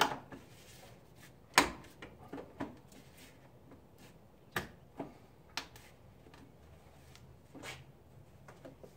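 Sharp plastic clicks and knocks as push-pin retaining clips are pressed into an aftermarket grille on a Jeep Wrangler JK and the grille is handled. The loudest snap comes about a second and a half in, followed by a scattering of smaller taps and clicks.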